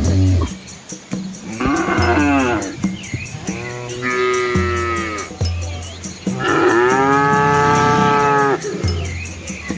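Cattle mooing: three drawn-out calls, a short one about two seconds in, another about four seconds in, and the longest, about two seconds, beginning around six and a half seconds in.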